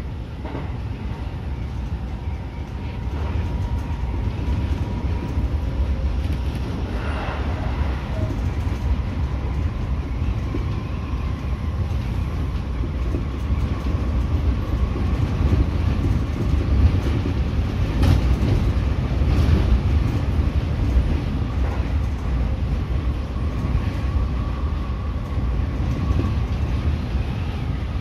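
Seibu 30000 series electric train running at speed, heard from inside the driver's cab: a steady low rumble of wheels on rail with a faint steady whine and a few sharp clicks.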